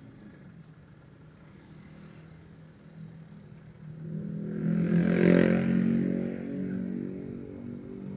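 Motorcycle engine running at low speed in slow traffic, with another engine swelling loudly and fading again around the middle, like a motorbike passing close by.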